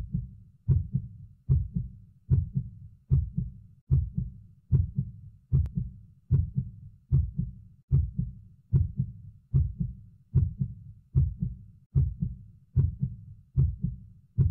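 A heartbeat: a steady lub-dub double beat, about 75 beats a minute, low and even throughout.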